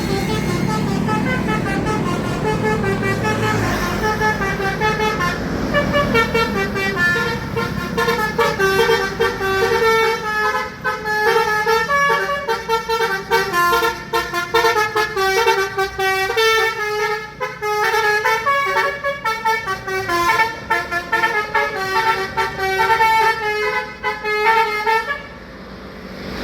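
Tour bus's telolet basuri musical horn playing a fast melody of short, jumping notes, with the bus's engine running low underneath at the start. The tune stops shortly before the end.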